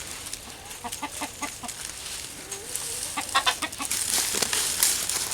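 Hens clucking in short, repeated notes as they feed on scattered dried beans, with one longer rising-and-falling call about halfway through.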